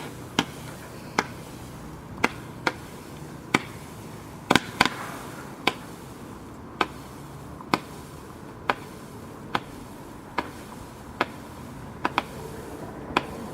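Consumer firework shooting colour pearls that each end in a report: a series of sharp bangs, about one a second, with a few coming in quick pairs.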